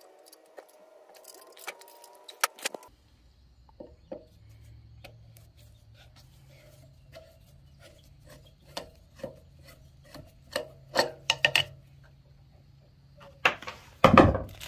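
A screwdriver scraping and clicking against a red plastic plug as it is pried out of the oil-fill hole of a new pressure-washer pump. The irregular clicks and scrapes get louder and quicker toward the end, over a low steady hum, and there is a sharp, loud handling sound near the end as the plug comes free.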